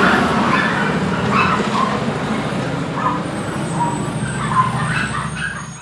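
A garbage truck's engine rumbling as it pulls away, growing slowly quieter, with a few short dog yips or barks over it. The sound fades out at the very end.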